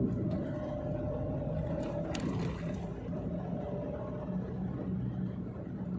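Steady rumble of a car's engine and tyres heard from inside the cabin, with a few light clicks a couple of seconds in.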